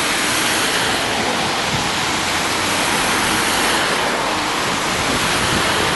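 Steady hiss of tyres on a wet road as a line of vehicles passes through standing water, with a low engine rumble underneath.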